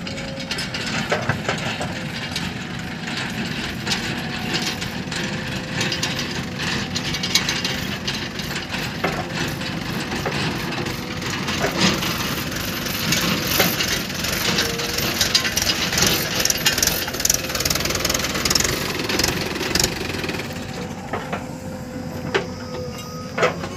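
A JCB 3DX backhoe loader's diesel engine runs under load while its bucket digs into and scrapes dry soil, with frequent knocks and clatters of earth and metal. About twenty seconds in the clatter stops and only a steady engine running remains.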